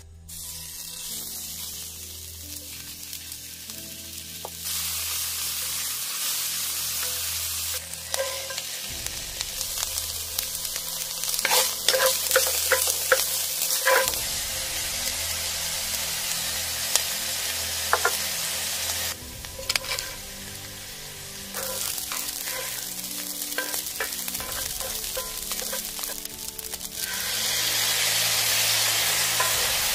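Food sizzling in a hot frying pan as chopped ingredients and rice are stir-fried with a wooden spatula, with sharp clicks and scrapes of the spatula against the pan. The sizzle gets louder near the end as sauce goes onto the rice.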